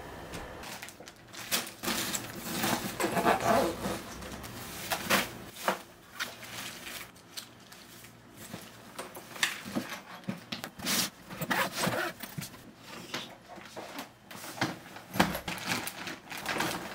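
Clothes and plastic packing bags rustling and being pushed into open hard-shell suitcases, in irregular bursts with scattered light knocks of the cases.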